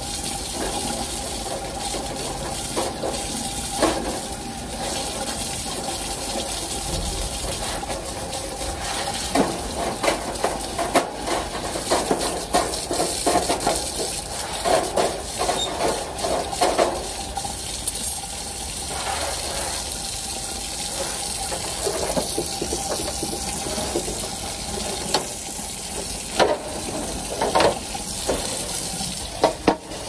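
Water running steadily while a scrub brush scrapes and rattles against the metal wire bars of a birdcage, in bursts of rapid strokes with clattering knocks.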